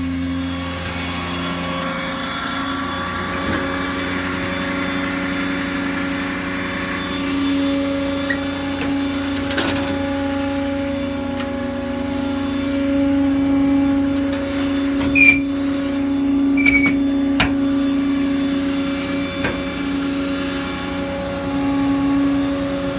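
The 6.7 L Power Stroke V8 diesel of a Ford F-550 idling with a steady hum. There is a sharp click about ten seconds in, and a few clicks and short high squeaks past the middle.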